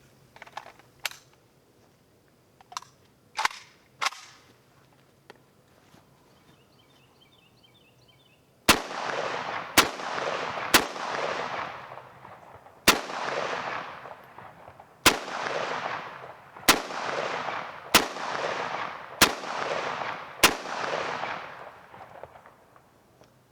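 Romanian AK-47 semi-automatic rifle in 7.62×39 mm firing nine single shots, spaced about one to two seconds apart, each followed by a long fading echo. A few light clicks come first, and the shooting starts about nine seconds in.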